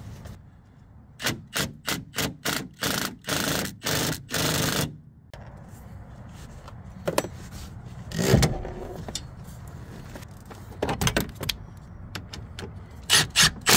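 A tool with a T40 Torx bit turning the Jeep Wrangler seatbelt's anchor bolt: about nine short bursts, roughly two a second, each a little longer than the last. A single thump comes about eight seconds in, and a few scattered clicks near the end.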